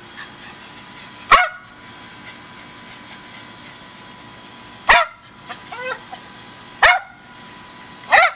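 Rat terrier barking at a squirrel up a tree: four sharp single barks spaced about two seconds apart, with a few quieter short calls between the second and third.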